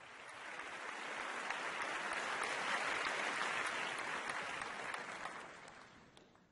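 Applause that swells in from silence and fades away again.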